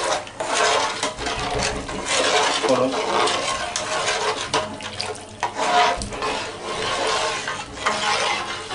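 A slotted metal spoon stirring salted water with whole spices round a large metal pot: continuous swishing and sloshing of water, with frequent small clicks and knocks of the spoon against the pot.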